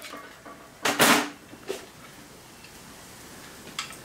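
Hand tools clicking against the metal arm of a Bernina 217 industrial sewing machine during disassembly: a loud double clack about a second in, a softer one shortly after, and a faint tick near the end.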